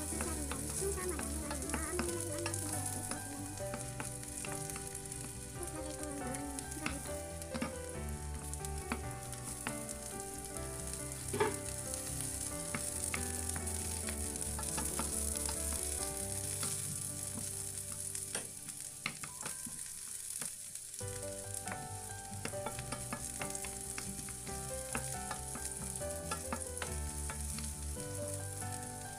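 Sliced onions sizzling as they fry in a pan, with a steady hiss, stirred and scraped with a wooden spatula that clicks against the pan now and then; one louder knock about eleven seconds in.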